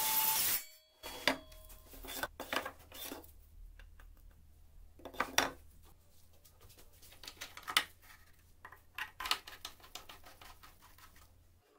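A Greenworks circular saw running, which cuts off sharply about half a second in. Then come scattered light clicks, knocks and rattles of wood and metal as the homemade sliding saw rig and its wooden stop are handled.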